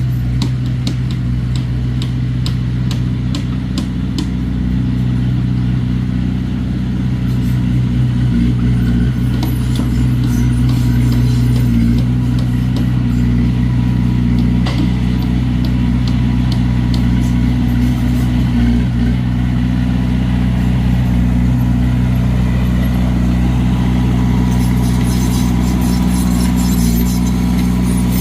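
Komatsu D21A bulldozer's diesel engine running steadily, with scattered light clicks over it.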